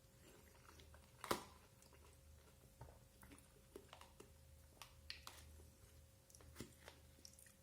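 Quiet eating sounds: faint chewing and small mouth clicks, with one sharper click about a second in, over a faint steady hum.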